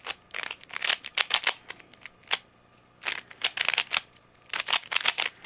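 A concave stickerless 3x3 twisty-puzzle cube built on the Dayan Guhong mechanism being turned fast during a solve: its plastic layers clack in quick runs of turns, with a pause of about a second near the middle.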